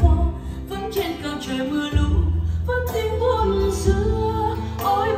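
A song with singing and a heavy bass line, played through 25Neo RuBy column speakers and 50RuBy subwoofers.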